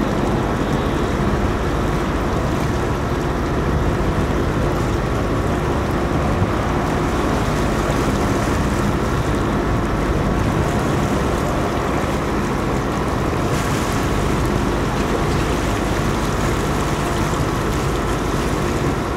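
Motorboat under way: its engine running with a steady drone, water rushing past the hull and wake, and wind on the microphone.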